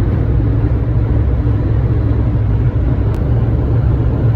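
A car driving at speed, heard as a steady, loud, low rumble of road and wind noise.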